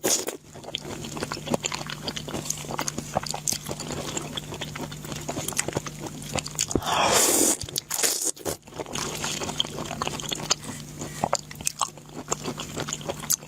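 A person chewing and biting crunchy food close to the microphone: a dense, irregular run of crunches and mouth clicks. About halfway through comes a brief, louder hiss-like swell, and a faint steady hum sits underneath.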